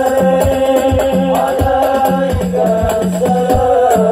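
Live sholawat music: voices chanting a devotional melody over a steady drum beat of about two to three strokes a second.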